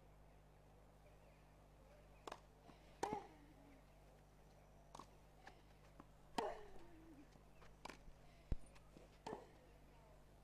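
A tennis rally on a grass court: a string of sharp racket-on-ball strikes and ball bounces, about eight in all. Two of the strikes, about 3 and 6.5 seconds in, carry a player's short grunt that falls in pitch.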